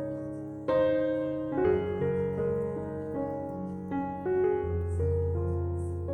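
Background piano music: a melody of held notes over sustained chords, with a deep bass note coming in a little past the middle.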